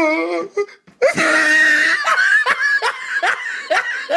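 A man laughing hard: a loud breathy burst about a second in, then a run of quick short bursts.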